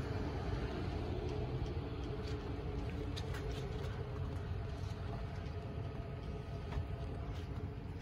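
Steady low rumble and hiss with a faint hum running through it, and a few light ticks.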